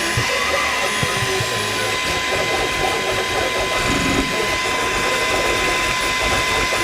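Toybox 3D printer printing: its stepper motors whir and chatter as the print head moves, over a steady high-pitched whine.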